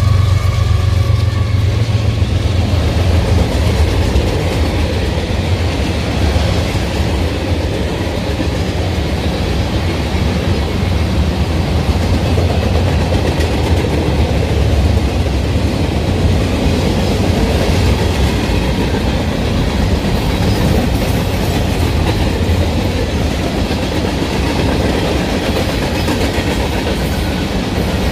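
Union Pacific manifest freight train's cars rolling past, a steady noise of wheels on rail with a strong low rumble that eases a little after about halfway. A faint high tone from the departing locomotives fades out in the first couple of seconds.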